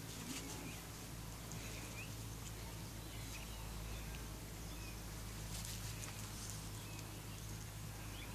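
Faint outdoor ambience: a low steady hum, soft pattering of small feet on tarmac, and a few short distant bird chirps.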